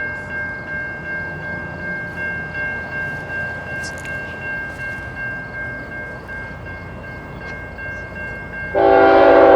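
A train running past with a steady rumble and a thin high ringing tone, then a locomotive horn blasts suddenly near the end, loud and sustained.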